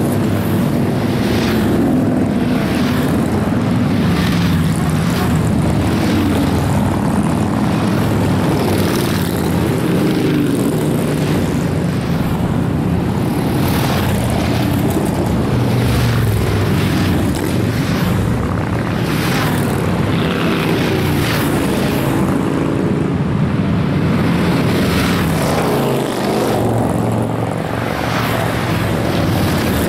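A steady stream of cruiser motorcycles riding past one after another at highway speed. Their engines swell and fade as each one goes by, overlapping into a continuous loud drone.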